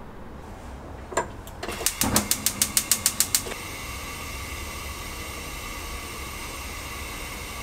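Gas stove burner being lit: the igniter clicks rapidly, about a dozen ticks in a second and a half, then the flame catches and the burner runs with a steady hiss.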